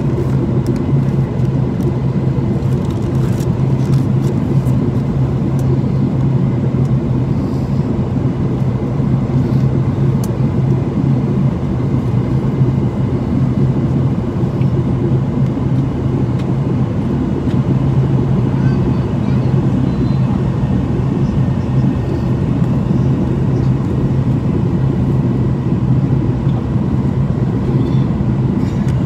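Steady cabin noise inside a Boeing 737-800 airliner descending on approach: the even drone of its engines and the airflow, with a strong low hum underneath.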